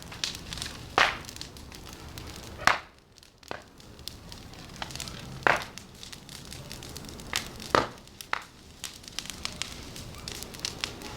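A large bonfire crackling, with scattered small ticks over a steady rush and a handful of sharp, loud pops spread through.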